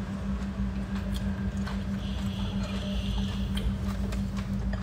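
Ramen noodles being slurped and chewed, with a few light clicks of chopsticks against bowls, over a steady low hum.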